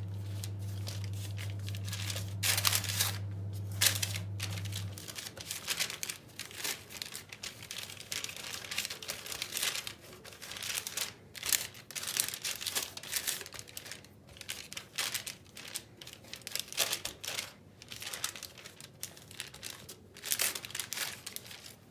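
Baking paper crinkling and rustling in irregular bursts as hands press and stretch pide dough out across a paper-lined baking tray. A low steady hum runs underneath and stops about five seconds in.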